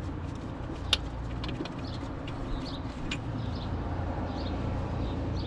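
A few short metallic clicks and knocks of tools and parts being handled during front-suspension work, the sharpest about a second in and again about three seconds in, over a steady low hum.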